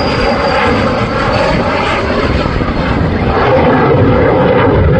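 F-16 fighter jet's single engine heard as it flies past on landing approach with gear down: loud, steady jet noise, with a high whine that slowly falls in pitch.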